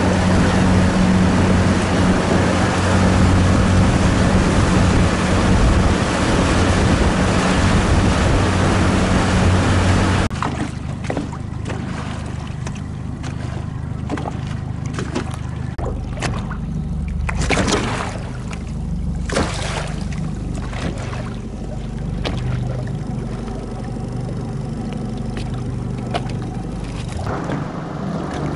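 A boat's engine running steadily under wind and water noise. About ten seconds in it cuts away to quieter wind and water sounds with occasional gusts.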